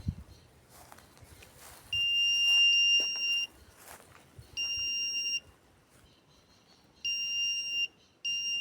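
EAS FLR long-range locator giving a steady high electronic beep four times, the first about a second and a half long and the others shorter, the first the loudest. The beeps are its signal that it has picked up the target it is searching for, a buried gold medal.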